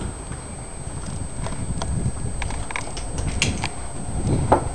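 2004 Suzuki GSX-R600's inline-four engine idling with a rough, even pulse. A few light clicks sit over it, and a sharper knock comes near the end.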